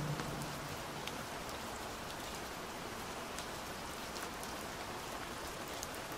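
Steady rain falling: an even hiss with scattered faint drop ticks. The tail of a muffled song dies away in the first half-second.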